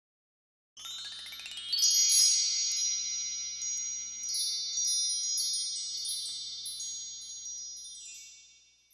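Shimmering chimes: a rising run of bell-like notes about a second in, then many high chiming notes that keep ringing and slowly fade away near the end.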